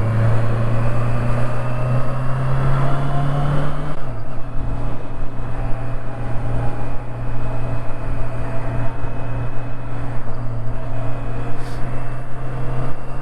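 Honda CB650R inline-four motorcycle engine running under way, its note climbing slightly for the first few seconds, dropping suddenly about four seconds in, then holding steady.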